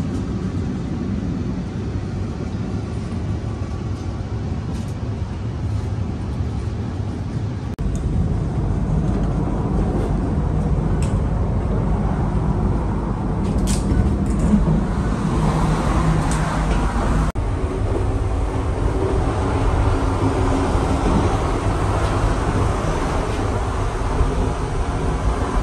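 Steady rumble of an electric intercity train running, heard from inside the carriage, with a few light clicks over it.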